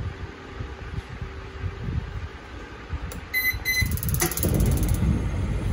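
Gas baking oven powering up: two short electronic beeps from the temperature controller about three seconds in, followed by fast, even ticking from the burner's spark igniter and a louder low rumble as the gas burner lights.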